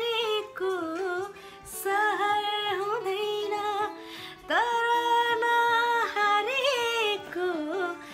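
A woman singing a slow, sad Nepali song alone, without accompaniment. She holds long notes that waver in pitch, with short breaks between phrases about one and a half and about four and a half seconds in.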